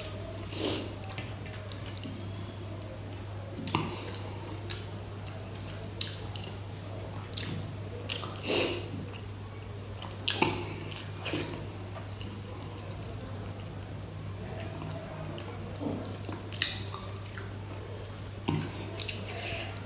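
Wet squishing and clicking of rice and kadi curry being mixed by hand on a steel plate, with chewing. The sharp clicks come at irregular moments over a steady low hum.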